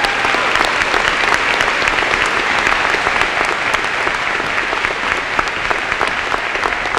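Audience applauding after a speech: many hands clapping at once, loud and steady throughout.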